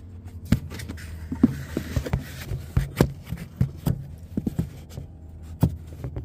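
Handling noise: a string of irregular light clicks and knocks as a phone camera is moved about and hands bump plastic parts behind a car headlight, over a steady low hum.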